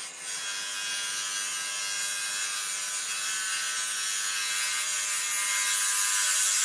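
Wood lathe running while a parting tool faces off the end of a spinning wood blank, cutting it flat. The cut makes a steady hissing scrape over the lathe's even hum, growing a little louder toward the end.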